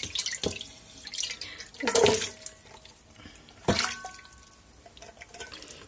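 Milk marinade with chunks of turkey, onion and carrot poured from a metal pot into a multicooker's bowl, splashing and plopping, louder about two seconds in. A little past halfway there is a sharp metal clink that rings briefly.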